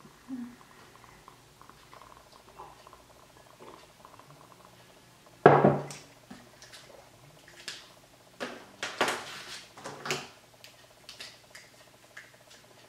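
A mug set down on a table with a single sharp knock about five and a half seconds in. Then come a few lighter clicks and clatters as pens and highlighters are handled.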